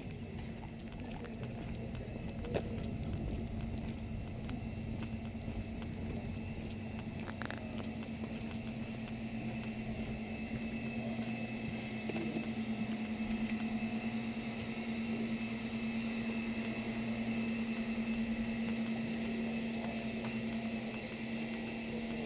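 A steady mechanical hum on one low tone, growing somewhat louder later on, with a single sharp knock about two and a half seconds in.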